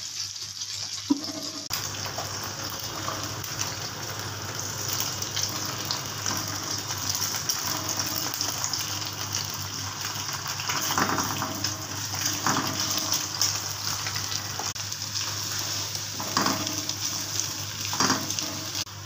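Sliced onions and eggs sizzling in hot oil in a pan, with a steady hiss. A spatula stirs and scrapes the pan a few times in the second half, over a steady low hum.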